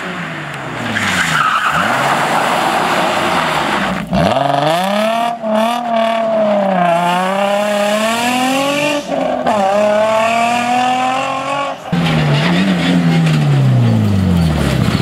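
Rally cars at full speed on a stage: a Nissan 350Z's engine revving up and down repeatedly as it slides through a gravel corner, then, after a cut near the end, a Mitsubishi Lancer Evolution rally car going by with its engine pitch falling as it passes.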